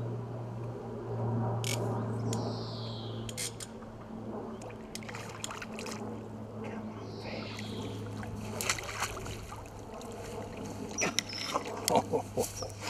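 Water splashing as a hooked common carp is played at the surface and drawn into a landing net, with a quick run of sharp splashes near the end. A steady low hum sits underneath.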